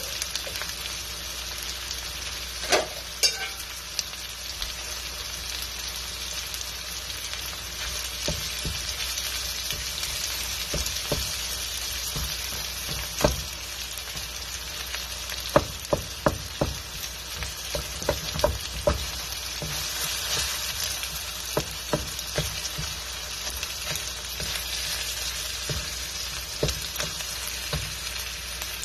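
Corned beef and red onions sizzling steadily in a metal wok, with a wooden spatula knocking and scraping against the wok now and then, most often in the middle of the stretch.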